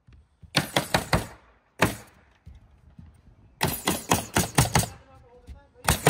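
Hammer blows on timber in quick runs of several strikes, with pauses between the runs, as nails are driven while framing a deck.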